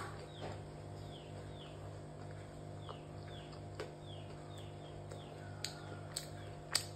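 Small birds chirping in short, high, falling calls, about two a second, over a low pulsing hum, with a few sharp clicks near the end.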